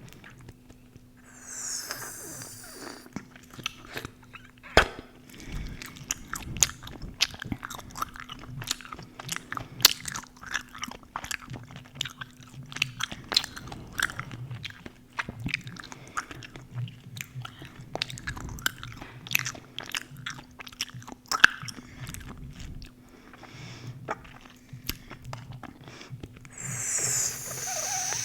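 Chewing gum worked close to the microphone: irregular wet smacks and sharp clicks of the mouth and gum, a few every second, over a faint steady hum.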